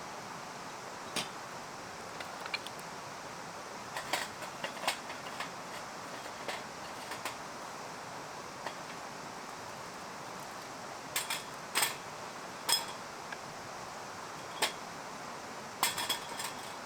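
Scattered sharp metallic clinks and light clatters of metal camp gear being handled, with several in quick succession around the middle and again near the end, over a steady low hiss.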